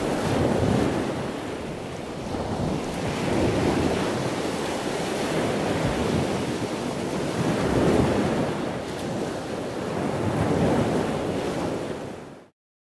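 Ocean waves washing ashore, the surf swelling and falling every few seconds, fading out near the end.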